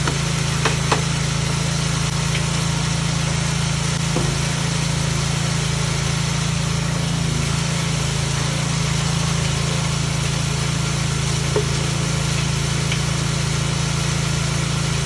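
Chain-type secondary ore crusher running steadily with a loud low hum while it crushes gold ore. A few sharp knocks sound over it, a hammer rapped on the housing to knock fines stuck to the sides back into the path of the chain.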